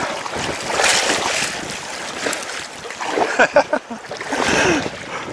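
Choppy lake water splashing and slapping against an inflatable kayak as it is paddled with a double-bladed paddle, with wind on the microphone. The splashing swells twice, about a second in and again past four seconds.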